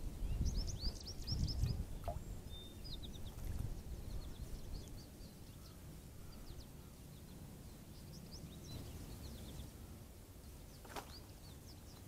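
Small songbirds chirping in several quick clusters of short, high notes, over a low outdoor rumble that is loudest in the first two seconds.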